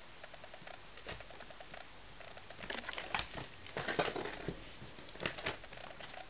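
Rabbits crunching a dry snack: quick runs of small chewing ticks. From about three to five and a half seconds in, louder rustling and scuffling over the chewing.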